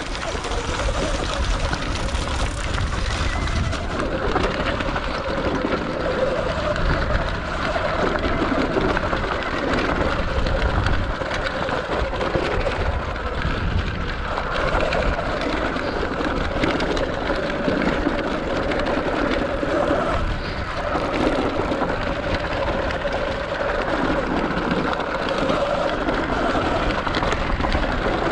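Sur Ron X electric dirt bike ridden down a loose, rocky trail: a steady drivetrain whine over a continuous rush of tyre and wind noise.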